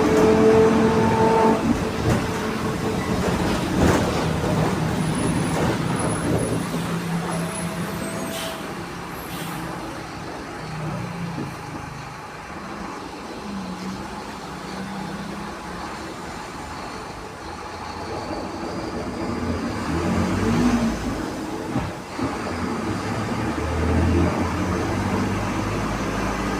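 Mercedes-Benz LO 916 Bluetec 5 bus on the move, its OM924 LA 4.8-litre four-cylinder diesel running with the differential droning. The engine note falls away through the middle and builds again near the end.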